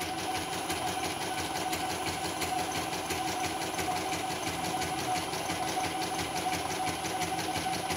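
CNY portable embroidery machine, housing off, stitching a design: a steady motor hum with the fast, even ticking of the needle strokes. It is running with its bobbin case and motor fan newly replaced.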